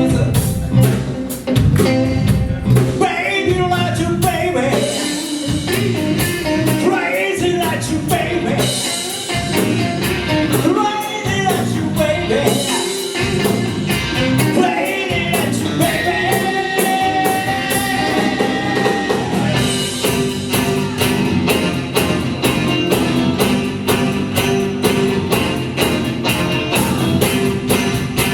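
Live band playing an upbeat soul-blues number, with drums keeping a steady beat under bass and guitar. A lead line of sliding, bending notes runs over it, with one long held note past the middle.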